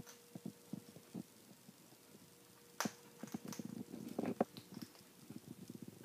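Amazon parrot on a wire cage top: irregular small clicks and crunches of beak and claws on the wire and on hard pellets, with a couple of sharper cracks and a run of quick soft clicks in the second half.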